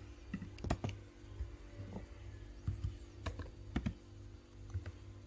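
Computer keyboard keys clicking: a handful of separate, irregular keystrokes as a command is entered, over a faint steady hum.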